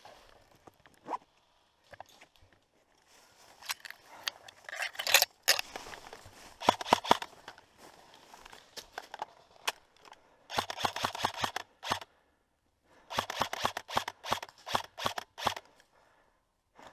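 Airsoft rifle firing in rapid clusters of sharp cracks: a string of shots about four seconds in, a dense burst around ten to twelve seconds in, then a run of quick single shots.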